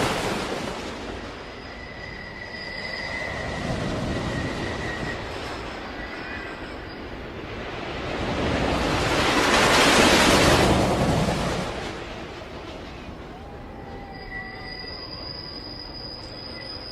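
Roller coaster train running on its track: a rushing rumble of wheels that swells and fades, loudest as the train passes about ten seconds in, with a steady high-pitched wheel squeal running through it.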